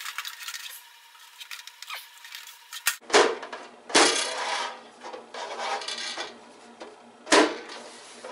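Sheet-metal housing of a vintage GE radiant heater being worked back into place by hand: light metal rattling and scraping, with sharp metallic knocks about three, four and seven seconds in.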